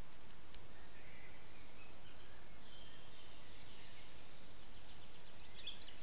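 Steady hiss of a trail camera's microphone in a wood at night, with faint high chirping calls from about a second in and a brighter burst of chirps near the end.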